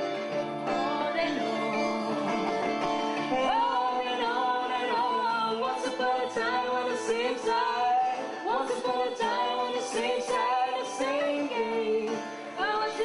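A live band playing a song, with electric guitar and male and female voices singing.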